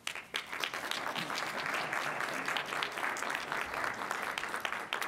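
Audience applauding: a dense patter of many hands clapping that starts suddenly and dies down near the end.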